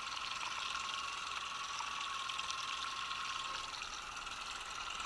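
Fishing reel being wound in while a trout is played to the boat: a steady thin whine with faint ticking, which fades out about three-quarters of the way through.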